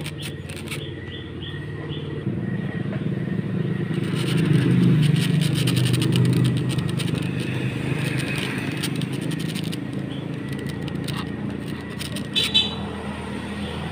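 A motor vehicle's engine running close by, growing louder about four seconds in and then easing off.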